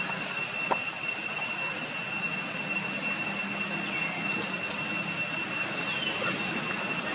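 Steady high-pitched insect drone over an even outdoor hiss, with a few faint falling chirps around the middle.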